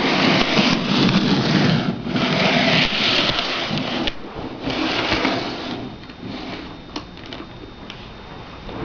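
HO scale model locomotive running on the track, its small electric motor and wheels making a whirring rush in stretches of about two seconds, then fading to a quieter hum with a few clicks near the end.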